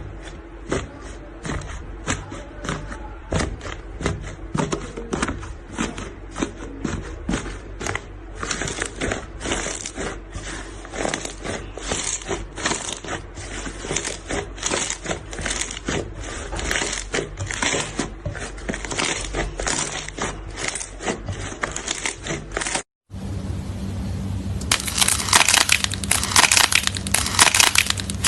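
Slime being squeezed and pressed by hand, making a run of sharp clicking pops, roughly two a second. After a brief break near the end it changes to a denser, louder crackle.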